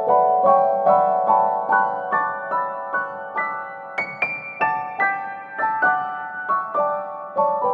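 Background music: a gentle piano melody, single notes struck a few times a second and left to ring, with a brighter high note about four seconds in.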